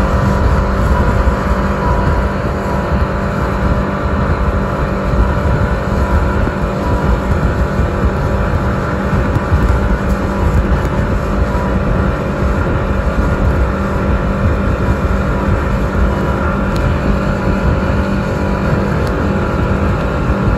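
Speedboat engine running steadily at speed, a loud continuous drone mixed with water rushing past the hull.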